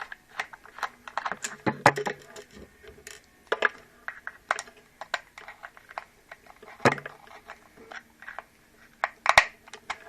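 Phillips screwdriver backing the small screws out of a PS3 controller's plastic shell: a run of irregular small clicks and ticks, with a few sharper knocks.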